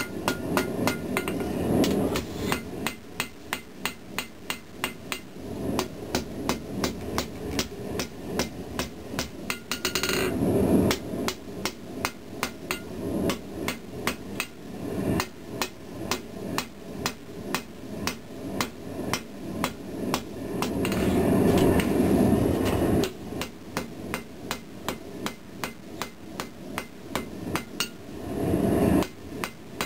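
Ball-peen hammer striking red-hot pattern-welded steel on an anvil in a steady rhythm of about two blows a second, each blow ringing briefly off the anvil, as the blade is drawn out to a taper. A steady rushing noise swells up a few times between the strikes.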